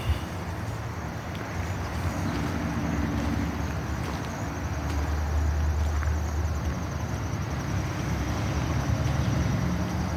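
Steady low engine rumble, like a motor vehicle running, with a faint fast high trill over it.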